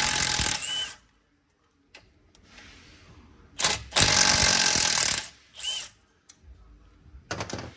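A power tool runs in bursts, backing out the bolts of a 6L80 transmission's tail housing. One burst runs briefly at the start and a longer one of about a second and a half comes about four seconds in, with a few short clicks near the end.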